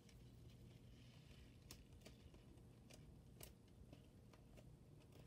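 Near silence: quiet room tone with a handful of faint clicks and taps.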